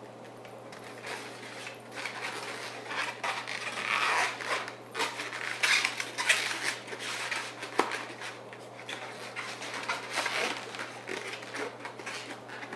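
Latex modelling balloons being twisted and handled, an irregular rubbing noise that comes and goes, with one sharp click about eight seconds in.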